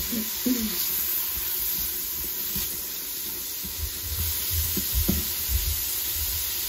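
Onions and celery sizzling in hot oil, a steady hiss of sautéing vegetables, with some low bumps about four seconds in.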